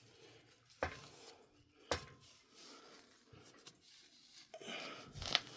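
Quiet handling noises from engine main bearing caps being picked up and turned over: two sharp clicks about a second apart, then some rubbing and another click near the end.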